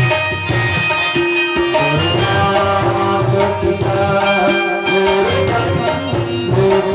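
Instrumental devotional folk music from a Ramdhuni troupe: a melody of held notes over a steady hand-drum beat.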